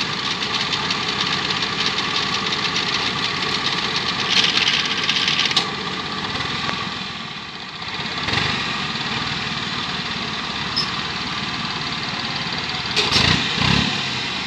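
Engine of a small tracked farm carrier running steadily. Its level dips briefly in the middle and picks back up, with a short hiss about four seconds in and a few louder knocks near the end.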